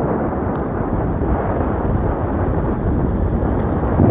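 Steady wind buffeting the microphone while riding along a road, with a low rumble of road and engine noise beneath.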